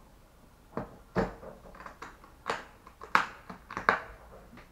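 Makeup palettes and cases clacking together as they are rummaged through: about five sharp knocks with rustling in between, the loudest about three seconds in.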